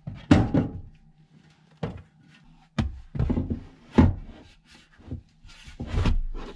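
A heavy under-seat safe being set down into a vehicle's under-seat storage compartment and shoved into place: about half a dozen knocks and thuds with scraping and rustling in between.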